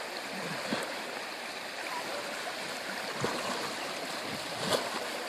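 River current rushing and gurgling steadily, with a few brief sharp knocks, the loudest near the end.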